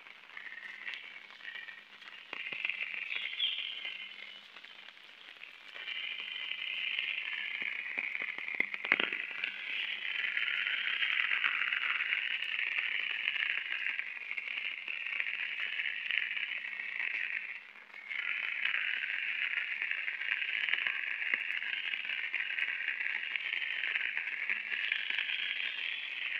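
A shrill, steady buzzing chorus of insects. It fades for a couple of seconds about 4 seconds in and cuts out briefly about 18 seconds in. A few soft clicks come around 9 seconds in.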